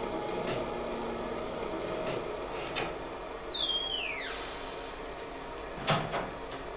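A metal spoon stirring a small saucepan on an electric hot plate, with a few light clinks against the pot and a louder knock near the end. A high squeal falls steeply in pitch over about a second around the middle. A low ambient drone fades out in the first second.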